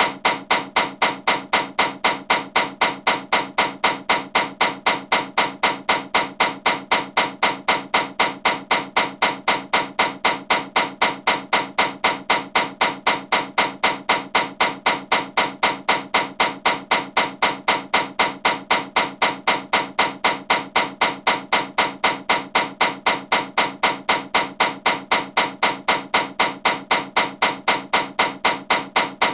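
Ceiling fan running with a loud, regular clacking knock, about three knocks a second, steady throughout.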